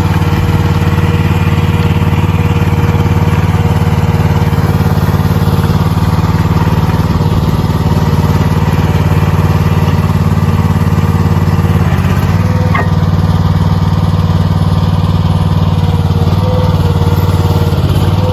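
Engine running steadily at a constant speed while a log is being handled at the sawmill. A brief high squeal rises over it about two-thirds of the way in.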